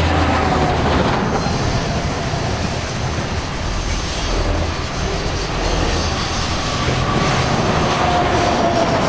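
Union Pacific coal train's hopper cars rolling past on a curve: a steady rumble and rattle of wheels on rail, with a faint wheel squeal briefly at the start and again near the end.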